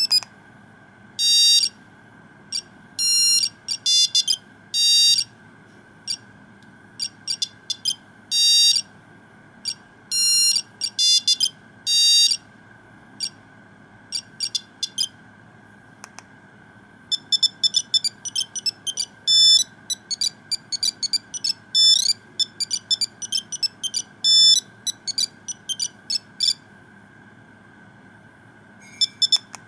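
Nokia 2100 mobile phone playing one of its built-in monophonic ringtones: a beeping tune of short and longer notes that quickens into a fast run of notes about halfway through and then stops. More beeps start near the end.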